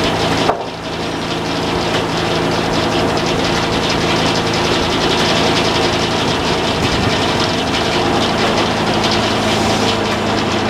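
Sawmill running under engine power: a steady engine drone with a loud, even whirring noise over it. The sound dips briefly about half a second in.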